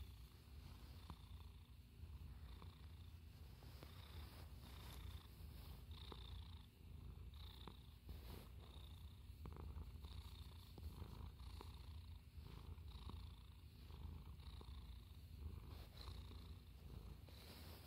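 Siamese cat purring steadily and faintly: a continuous low rumble, with soft rustles of fur as it is stroked.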